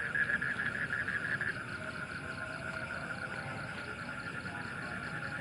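Night chorus of frogs calling in a fast, steady pulsing trill, with insects; louder in the first second and a half.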